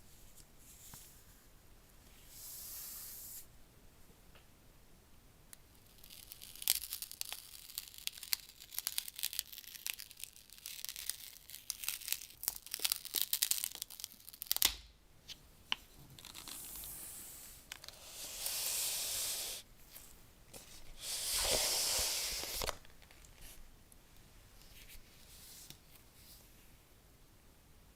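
Packaging being torn and opened by hand: a long run of sharp plastic crackles, a single knock, then three longer tearing rips.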